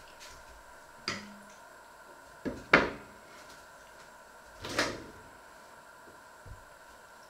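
Kitchen cupboard doors being opened and shut, heard as a series of knocks and bangs. There is one knock about a second in, then a quick double bang a little later, the second of the two the loudest, then another bang near five seconds and a faint knock after it.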